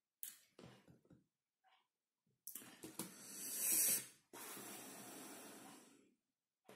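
A person breathing heavily close to the microphone: a few short soft noises, then a long breath that grows louder for about two seconds, and a steady breath of about two seconds that fades out.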